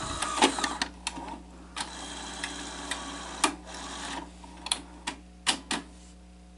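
Sony SL-HF350 Betamax video deck's tape mechanism at work: a series of sharp mechanical clicks and clunks over a low steady whir, the whir stopping about four seconds in.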